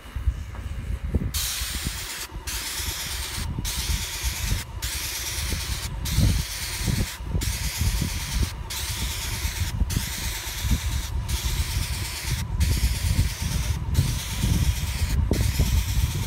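Airless paint sprayer gun hissing as it sprays paint onto a corrugated metal roof. The spray starts about a second in and cuts out briefly about every second and a quarter, as each pass of the gun ends.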